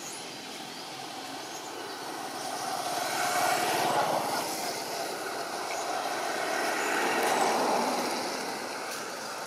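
Motor-vehicle noise passing by: a steady rushing sound that grows louder about three seconds in, eases, and swells again around seven seconds before fading.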